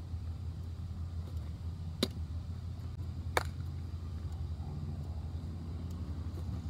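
Two sharp pops of a baseball smacking into a leather glove, just over a second apart, over a steady low rumble.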